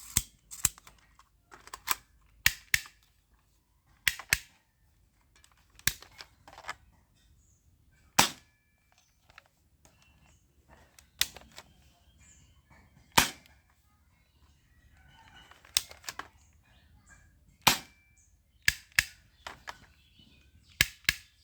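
Airsoft Glock pistol firing single shots, sharp cracks one to two seconds apart, some in close pairs, with a quicker run of shots near the end.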